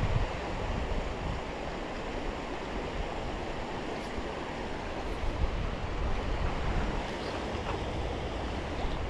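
Creek water running steadily over a riffle, with wind buffeting the microphone in low, uneven rumbles.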